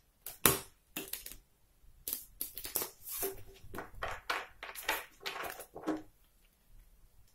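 A deck of plastic-coated playing cards being riffle-shuffled by hand, heard as several short riffles and snaps over about six seconds, the loudest about half a second in. The shuffle is botched.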